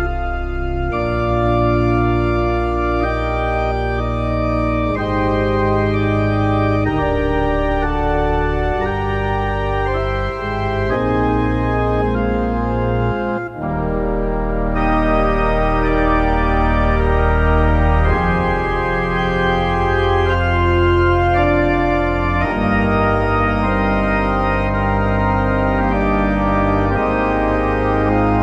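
Organ playing slow, sustained chords over deep pedal bass notes, with a short break in the sound about halfway through.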